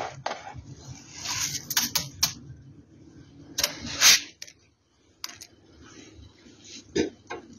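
Hands handling ration rice and a small iron ring on a white plastic plate: a series of sharp clicks and taps, the loudest about four seconds in, with a brief rustle of grains about a second in.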